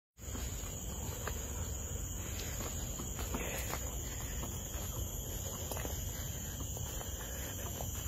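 Steady high-pitched drone of tropical forest insects, several constant tones at once, over a low rumble, with a few faint footsteps on the path.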